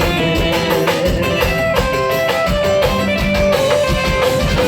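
Instrumental break of a piseiro song: a melodic guitar-like lead over a steady drum beat.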